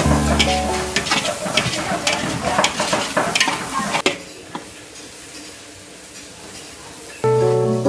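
A metal spatula scraping and clattering against a large metal wok as aromatics fry with a sizzle. About four seconds in the sound drops suddenly to a quieter sizzle with a few scrapes, and music comes in near the end.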